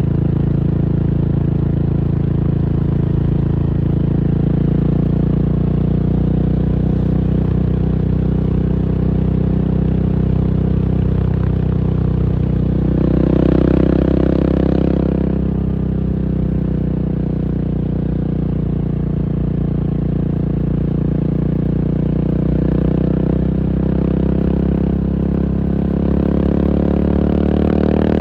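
KTM 690 SMC R's single-cylinder engine running steadily, with a brief louder swell about halfway through and the pitch starting to climb near the end.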